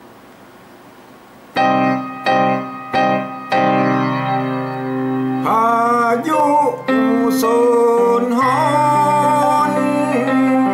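Electronic keyboard music: four short chord stabs start about a second and a half in, then held chords with a sliding, wavering melody line over them.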